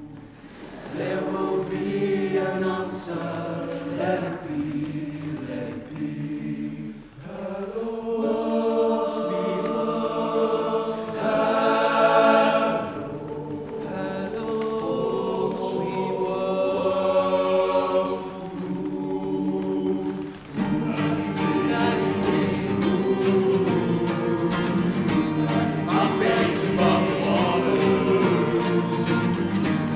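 Men's vocal group singing in harmony, unaccompanied at first. About two-thirds of the way in, strummed acoustic guitars and a drum come in under the voices.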